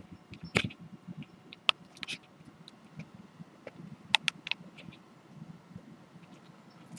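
Handling noise from turning a large diamond painting canvas around: scattered sharp clicks and taps over a faint rustle, the loudest about half a second in and about four seconds in.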